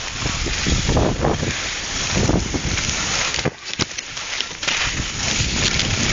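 Wind rushing over the microphone of a camera carried by a moving skier, mixed with skis hissing over snow; the noise dips briefly about three and a half seconds in.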